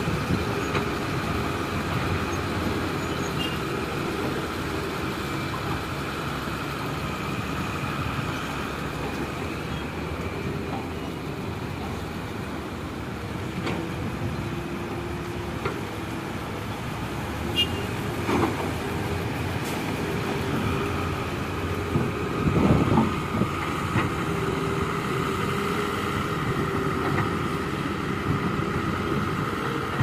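Diesel engines of heavy earthmoving machines, a hydraulic excavator and dump trucks, running steadily with a constant hum. A few clunks and knocks come about two-thirds of the way through.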